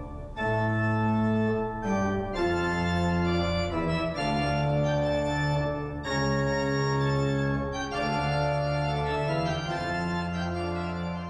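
Organ music playing slow sustained chords that change every second or two, beginning to fade near the end.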